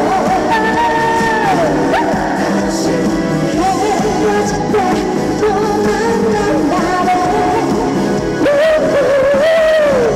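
Live trot-style pop song over an amplified backing track, a woman singing the melody, with a long note held with vibrato near the end.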